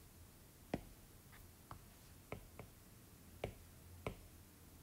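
Stylus tapping on a tablet's glass screen: about seven faint, sharp taps at irregular intervals, as a selection is copied and pasted in a note app.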